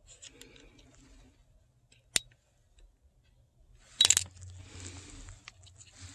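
Small plastic and metal clicks and fingertip handling as a CR2032 coin-cell battery is taken out of a BMW key fob's battery holder. There is one sharp click about two seconds in, then a louder cluster of clicks about four seconds in, followed by rustling.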